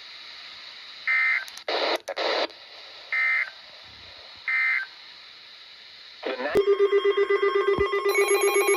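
Three short warbling data bursts of an Emergency Alert System end-of-message code, with two brief bursts of static after the first. About six and a half seconds in, a loud, rapidly pulsing electronic alert tone starts and keeps going, with higher tones joining near the end.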